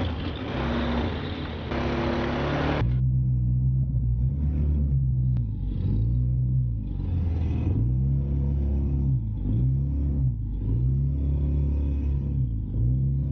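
ATV engine running with the throttle opened and eased repeatedly, its pitch rising and falling again and again. For the first three seconds a loud rushing hiss lies over it, then cuts off suddenly.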